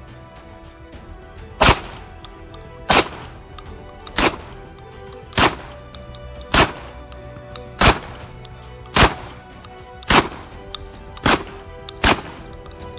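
Ten shots from a semi-automatic 12-gauge less-lethal shotgun firing 12/70 cartridges loaded with rubber balls. They come one about every second and a bit, emptying the ten-round magazine, and the last two are closer together.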